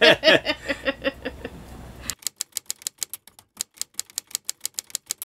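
A voice laughing, then rapid typewriter-like key clicks, about six or seven a second for some three seconds, over dead silence. This is typical of an added typing sound effect.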